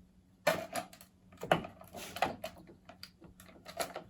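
Hard plastic clicking and knocking as a Milwaukee battery pack is handled and slid onto its charger: a handful of sharp, irregular clicks and taps.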